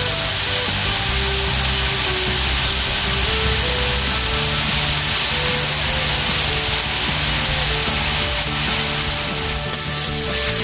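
Beef steaks sizzling steadily as they fry in a hot pan, under background music with a melody and bass line.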